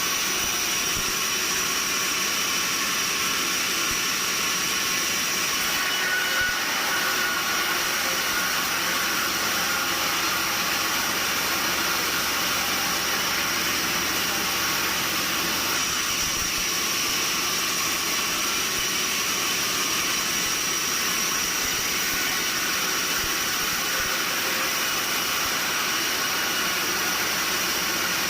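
Sawmill machinery running steadily: an even mechanical noise with a constant high-pitched whine.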